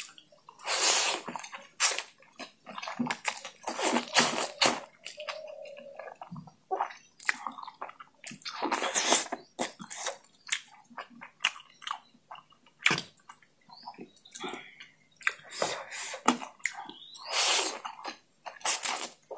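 Wet slurping and chewing of oily chilli oil noodles: long slurps of about a second each, several through the stretch, with shorter smacking chews between them.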